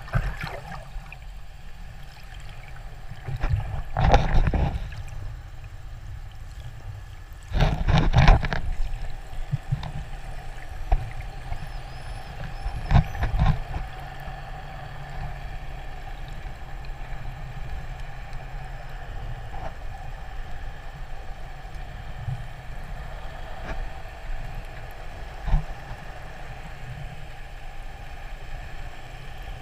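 Underwater sound through a diving camera: a steady low hum with a few held tones, typical of a boat engine heard through the water, broken by loud rushing, bubbling bursts of water about 4, 8 and 13 seconds in.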